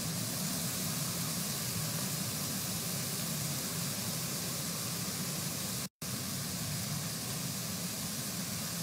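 Steady rushing storm noise from a hailstorm, with rain, hail and running water, cut off abruptly for a moment about six seconds in.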